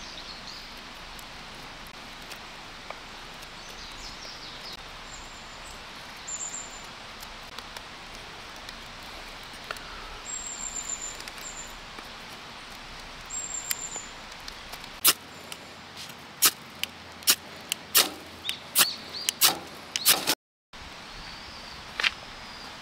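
Camping fire starter (ferro rod) struck about ten times in quick, sharp scrapes from about two-thirds of the way in, throwing sparks onto dry-leaf tinder. Before the strikes, a steady outdoor background with a few high bird chirps.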